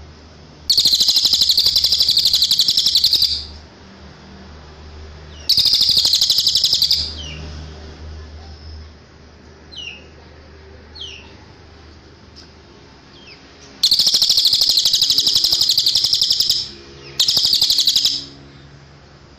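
Cililin song: four long, very rapid buzzy trills, high-pitched and loud, separated by pauses, with a few short, thin down-slurred chirps in between.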